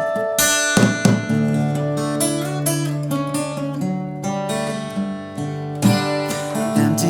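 Acoustic guitar strumming chords through an instrumental passage of a song, with sharp strokes about a second in and again near the end.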